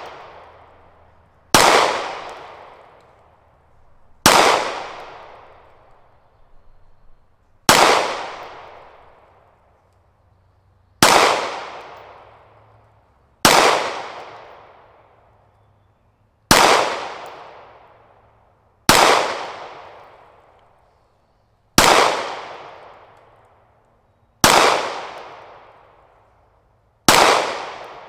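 9mm semi-automatic pistol fired slowly, ten single shots about three seconds apart, each crack trailing off in a long echo.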